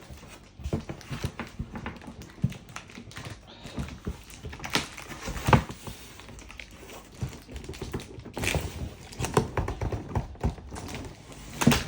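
Handling of a new plastic part and its packaging: irregular clicks, taps and rustling, with a louder knock about five and a half seconds in and another near the end.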